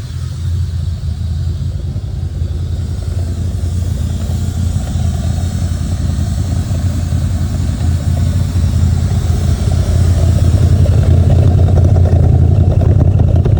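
Chevrolet C4 Corvette's V8 engine idling roughly. It grows gradually louder toward the end.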